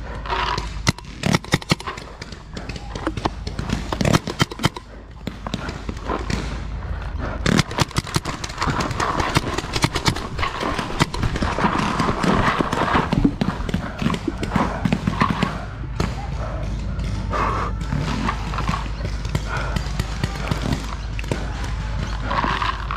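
Paintball markers firing: scattered sharp pops, with a quick run of shots about eight seconds in, under distant shouting.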